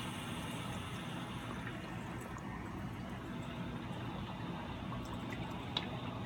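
Gas water heater tank filling with water: a steady rush of water, with air being let out through the opened temperature-and-pressure relief valve. One short sharp click near the end.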